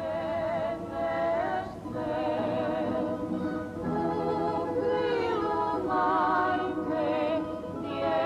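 Background music with a singing voice holding long notes with vibrato over a soft accompaniment.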